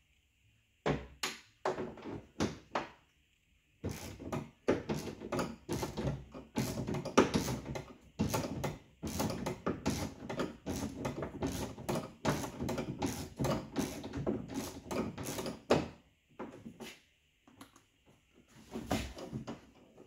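A socket ratchet clicking in quick, irregular bursts as it backs the exterior door handle's retaining nuts off inside a pickup door, with metal clinks. It pauses briefly about three seconds in, stops about sixteen seconds in, and clicks again briefly near the end.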